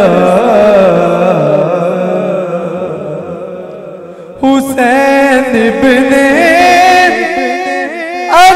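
A man singing a Punjabi naat into a microphone: a long, ornamented held note that fades away over about four seconds, then a new phrase starts suddenly and carries on at full voice.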